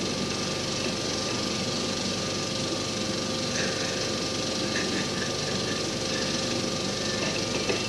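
Steady hiss and crackle of a worn old film soundtrack, with a constant hum running under it.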